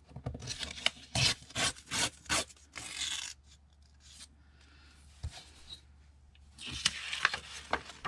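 A book page being torn out along a metal straightedge, in a run of short rasping pulls, a pause, then more tearing near the end as the sheet comes free.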